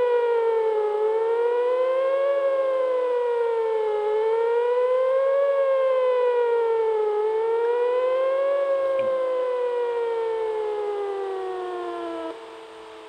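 Whelen WPS-4004 electronic outdoor warning siren sounding a wail, its pitch rising and falling about every three seconds. Near the end it glides down and cuts off sharply, leaving a fainter lower tone hanging on.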